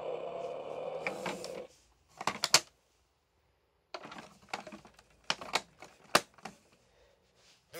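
Hard plastic clicks and clacks from a toy dump truck's bed being tilted and handled: a quick cluster of clacks, a pause, then a run of irregular taps and knocks. Before the first clacks, a steady electronic sound from the toy fades out after about a second and a half.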